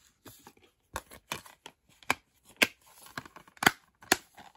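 Plastic Blu-ray cases and a clear plastic protective case being handled: a run of sharp plastic clicks and knocks with light rustling between, the loudest click about three and a half seconds in.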